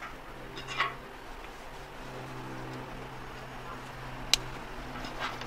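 Canvas weapons bag being rolled up and strapped, the fabric rustling now and then, with one sharp click a little over four seconds in as its buckle snaps shut.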